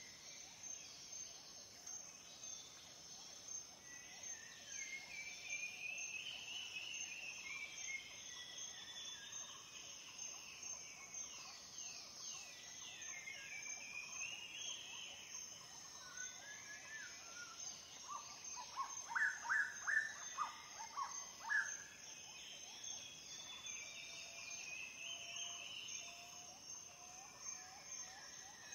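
Sparrows chirping and twittering in short calls and little sliding phrases, loudest in a quick run of chirps about two-thirds of the way through, over a faint, steady high insect buzz.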